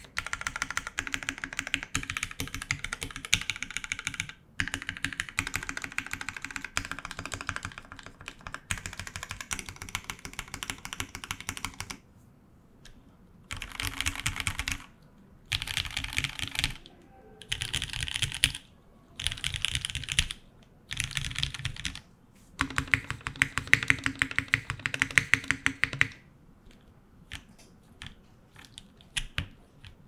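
Typing on a KFE CE mechanical keyboard with Gateron KS3 black switches, a polycarbonate plate, GMK keycaps and the case foam removed. Fast, continuous keystrokes for about twelve seconds, then runs of a second or so with short breaks between, and a few scattered single keystrokes near the end.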